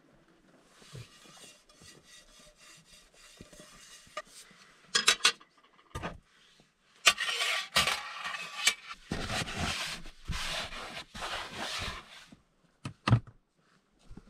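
Small gear being handled and put away: faint rubbing at first, then a few sharp clicks and clatters, and longer stretches of scraping and rustling, with more clicks near the end.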